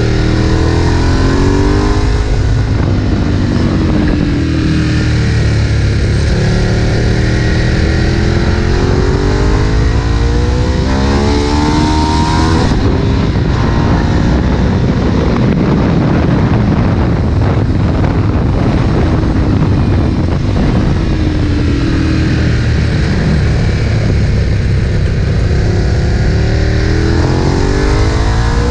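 Ducati 1098 L-twin engine at full track pace, revving up through the gears in repeated rising sweeps, with short breaks at each shift.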